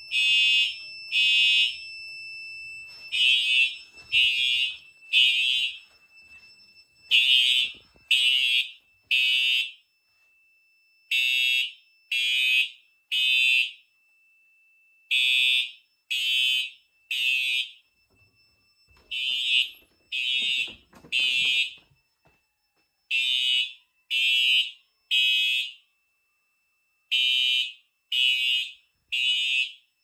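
Simplex TrueAlert fire alarm horns sounding in the temporal-three evacuation pattern: three half-second blasts, a pause of about a second and a half, repeating, set off by a pulled manual pull station.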